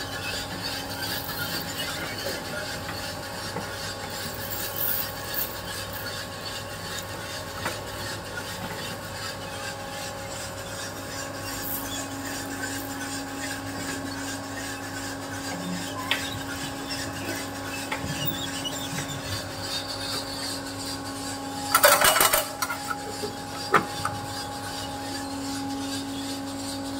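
A machine running with a steady hum and a rasping, rattling rub, with a loud short clatter about 22 seconds in.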